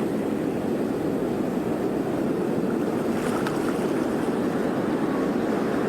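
Sea waves on a shore: a steady, even rush of surf.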